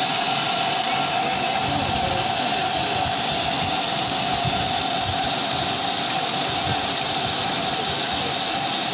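Steady whirring rush of air from many electric fans and air coolers running together, with a constant tone held through it.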